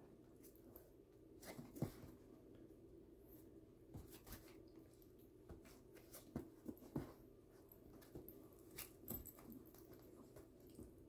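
Two small dogs play-fighting: faint scuffles, knocks and clicks at irregular moments, the loudest about two seconds in, over a low steady hum.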